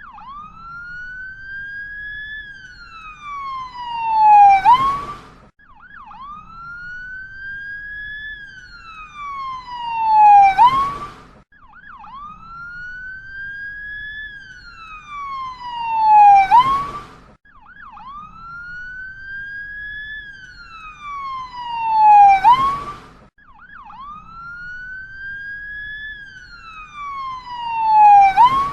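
Ambulance siren wailing in slow cycles, about one every six seconds: each cycle climbs gently, then sweeps down in pitch, growing louder toward the low end before a quick upturn. The cycle repeats five times, the same each time.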